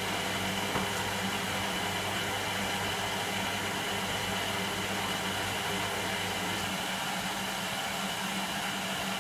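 Electra AWF683 washing machine running steadily: an even whirring hiss with a constant low hum and a steady high whine.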